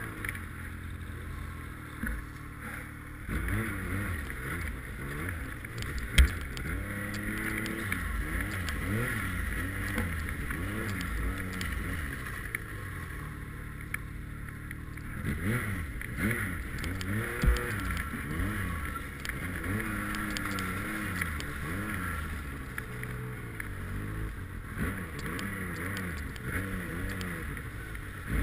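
Snowmobile engine running under load through deep snow, its pitch rising and falling again and again as the throttle is opened and eased off. Two sharp knocks stand out, one about six seconds in and one a little past the middle.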